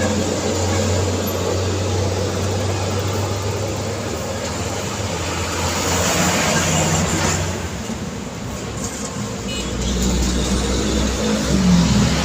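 Busy street traffic: motor vehicle engines running and tyre noise as vehicles pass, with one passing louder about halfway through and a deeper engine hum from a heavy vehicle setting in near the end.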